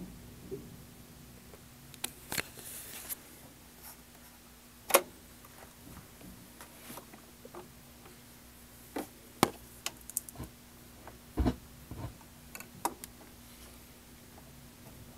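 Stylus in a quiet stretch of an LP groove with no music: faint surface hiss, a steady low hum, and scattered sharp clicks and pops at irregular intervals. The loudest pop comes about five seconds in.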